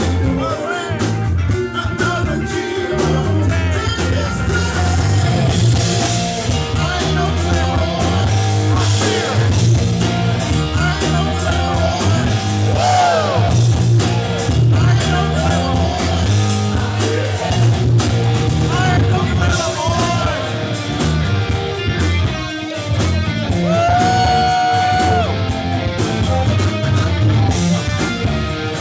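Rock band playing live: electric guitar, bass guitar and drum kit, with singing over the top and a held note near the end.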